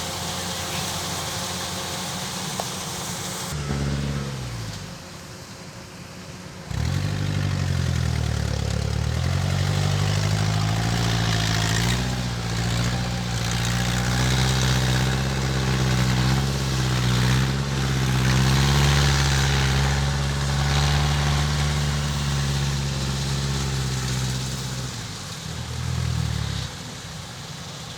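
Kubota DC105X combine harvester's diesel engine running. It drops in speed about four seconds in, then revs up sharply a few seconds later and runs at high speed with its pitch wavering. It eases back near the end, with one brief rev.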